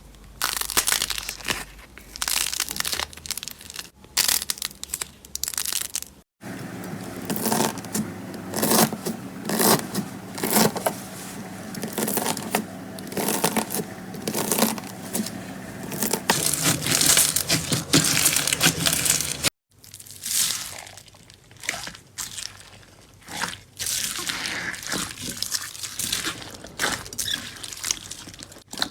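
Slime being squeezed and pressed by hand, making dense irregular crackles and pops, in several short clips joined by sudden cuts.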